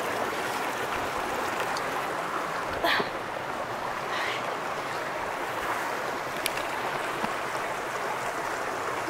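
Shallow creek water running steadily over rocks and cobbles, with a brief click or knock about three seconds in.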